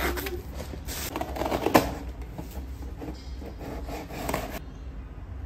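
Close rubbing and handling noise, with a few soft knocks about one and a half to two seconds in.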